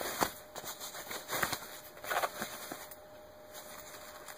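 Denim rustling as a jeans leg is pulled up, and hands handling a fabric ankle holster, in several short soft scuffs, with one sharp click about a quarter second in.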